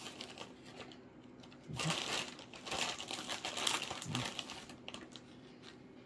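Plastic bag of shredded cheese crinkling as a hand works in it. The crackle is faint at first, then dense from about two seconds in until about five seconds in.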